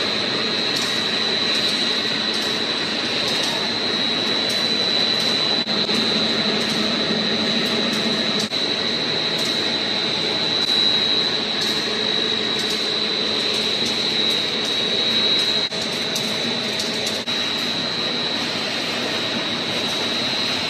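Dog food extrusion machinery running: a steady machine din with a constant high-pitched whine over it.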